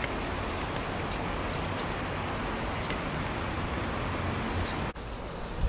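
Steady outdoor background noise, with a quick run of faint, high bird chirps about four seconds in. The background changes abruptly near the end.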